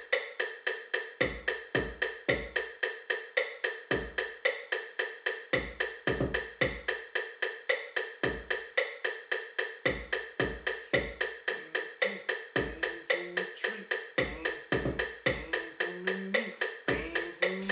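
Hip-hop beat in progress playing back from a beat-making program: a fast, steady woodblock-like click pattern with deep kick drum hits, and a low melodic line that comes in about two-thirds of the way through.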